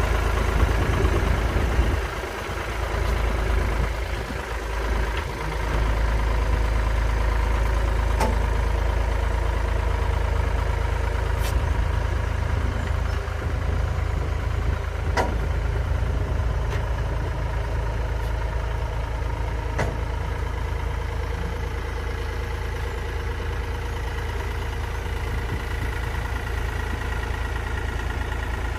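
Classic Ford tractor engine running steadily, dipping briefly a couple of seconds in, with a few sharp clicks through it.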